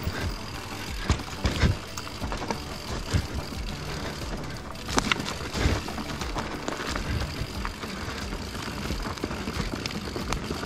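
Mountain bike riding down a forest dirt trail: a constant rolling and rattling of tyres and frame, with sharp knocks over bumps, strongest about a second and a half in and again around five seconds in.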